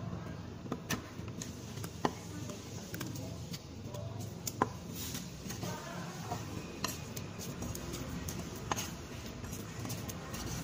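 Steel cleaver slicing fish fillets and knocking on a thick wooden chopping block: a handful of sharp, irregular knocks, the loudest about four and a half seconds in, over a steady low hum.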